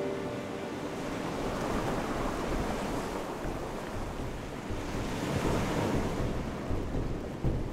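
Sea waves washing onto the shore in slow swells, with wind rushing over the microphone.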